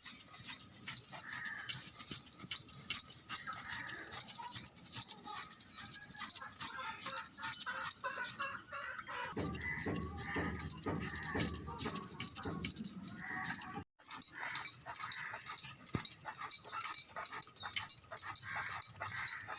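A dog whimpering and yipping in short repeated calls, over a steady high hiss.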